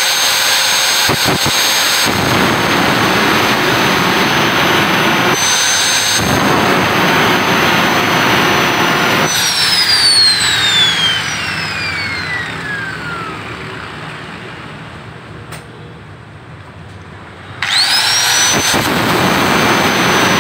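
Handheld electric angle grinder with a sanding disc, running with a high whine as it grinds down a steel hub on the scooter's CVT pulley. About 9 s in it is switched off and the whine falls away as the disc spins down. It starts up again about 17 s in, the whine climbing straight back up, and grinding resumes.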